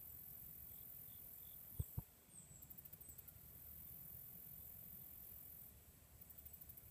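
Near silence in woodland: faint high-pitched insect trilling in short pulsed runs, and two short thumps close together about two seconds in.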